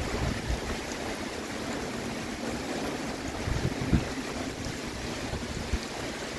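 Heavy typhoon rain pouring steadily in strong, gusting wind, with a few gusts thudding on the microphone.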